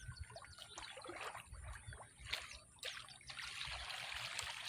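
Faint trickling and splashing of water in a flooded, muddy rice paddy, irregular at first and then a steadier trickle from about three seconds in.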